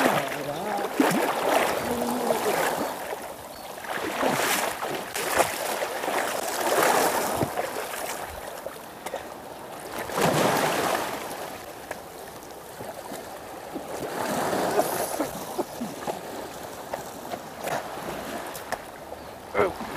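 Shallow seawater splashing and sloshing in irregular rushes.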